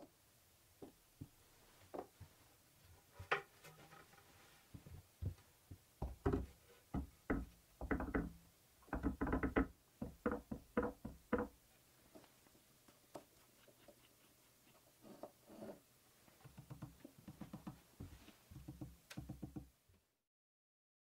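Small plywood blocks and a wooden board set down and shifted on a hardwood workbench: a string of irregular wooden knocks and clunks, thickest in the middle, with lighter clatter near the end.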